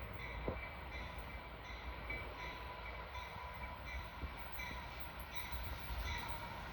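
Freight train rolling past, a steady low rumble of railcars with faint high squealing tones that come and go.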